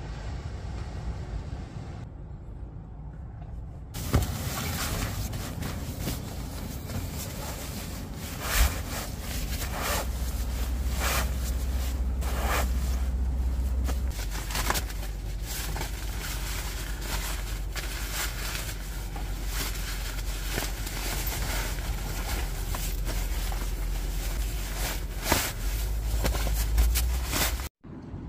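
Nylon sleeping bag rustling and crinkling as it is rolled up by hand, over a steady low rumble.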